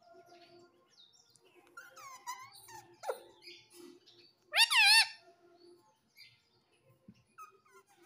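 Indian ringneck parakeet making soft chattering and mumbling sounds, then one loud, wavering call about halfway through.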